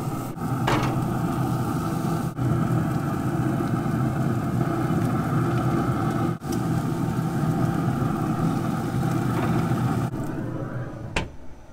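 Steady mechanical drone of a Traeger pellet grill running hot at about 400 degrees, briefly broken twice. One sharp click comes near the end.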